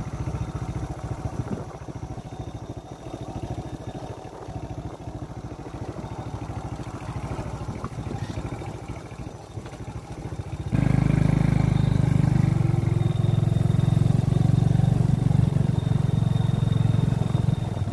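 Motorcycle engine running as it rides along, with a dense low pulsing; about eleven seconds in it gets suddenly louder and steadier, as if the throttle is opened.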